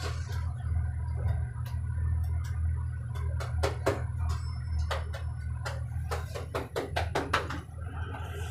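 Elevator car descending, its motor giving a steady low hum, with scattered sharp clicks and knocks over it.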